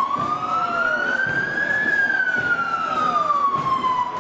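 Emergency vehicle siren wailing, its pitch rising slowly to a peak about two seconds in and then falling away.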